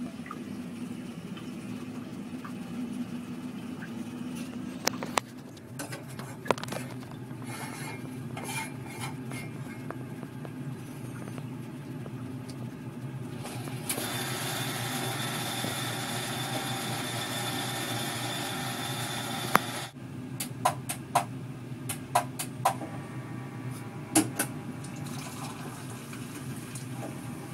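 Built-in automatic coffee machine making a cup of coffee. There are sharp clinks of a ceramic mug on the machine's metal cup stand, and about midway a steady whirring that runs for about six seconds and stops abruptly. A run of clicks follows, and near the end coffee streams into the mug.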